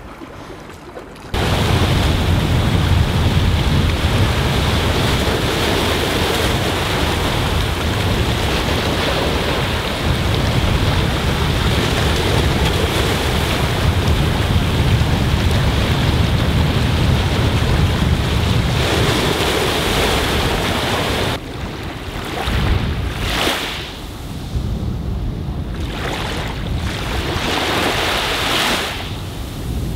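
Sea waves breaking and washing over low rocks, with wind buffeting the microphone in a steady low rumble. About two-thirds of the way in this gives way to small waves lapping on a sandy beach, rising and falling in surges.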